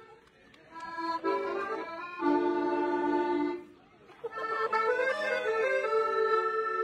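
Piano accordion playing a melody of held notes and chords, falling quiet briefly at the start and again about halfway through.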